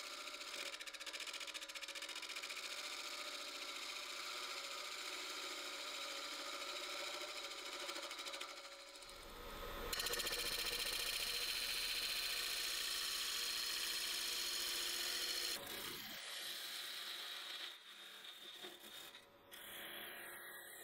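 Wood lathe spinning a wooden blank while hand-held turning tools cut it: a steady scraping hiss of the tool on the wood over the lathe's hum. The cut changes and gets louder about nine seconds in, changes again about sixteen seconds in, and turns quieter and uneven near the end as a parting tool cuts a groove.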